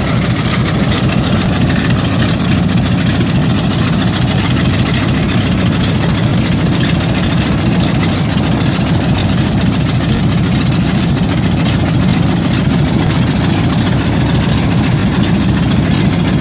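Vintage warbird's radial piston engine idling steadily on the ground, a loud, even low running sound.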